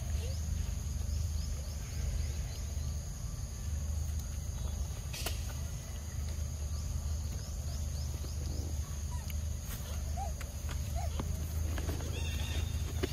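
Outdoor ambience: a steady low rumble with a steady high insect drone, scattered faint short chirps, and one sharp click about five seconds in.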